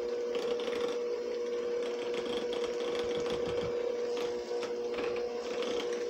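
Electric hand mixer running with a steady hum, its beaters whipping cream cheese frosting in a glass bowl.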